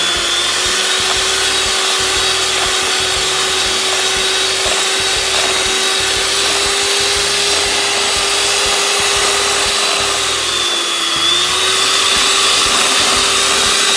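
Electric hand mixer running steadily, its twin beaters whipping egg whites and sugar in a plastic bowl. The motor's pitch dips briefly about ten seconds in, then recovers.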